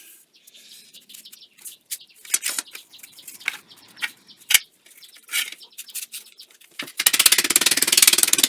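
Thin aluminium flashing being handled and folded into a shim, with scattered crinkles and light taps. About seven seconds in, a handheld power tool starts with a loud, rapid rattling buzz, sanding the shim smooth.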